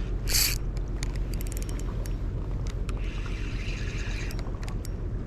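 Spinning fishing reel being cranked while working an egi squid jig: a run of light mechanical clicks, then a whirring from about three to four seconds in, over a steady low rumble.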